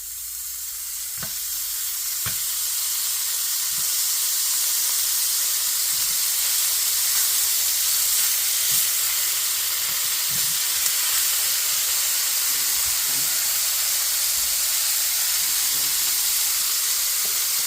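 Half-slices of bacon sizzling in a hot frying pan. The sizzle builds over the first few seconds as the strips go in and start to fry, then holds steady, with a few faint knocks.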